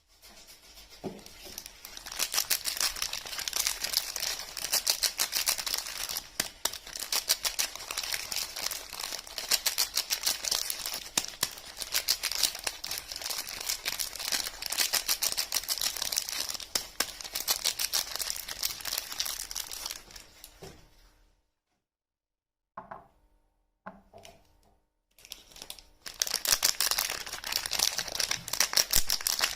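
Soap packaging being unwrapped by hand, with dense crinkling and tearing of the wrapper. About two-thirds of the way through it stops dead, a few short rustles follow, and then the crinkling starts again.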